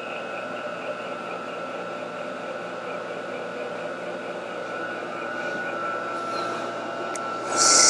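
Vertical milling machine running a boring head that feeds down through freshly poured babbitt in a Ford Model T engine's fourth main bearing: a steady motor hum with a high whine, and a brief louder hiss near the end.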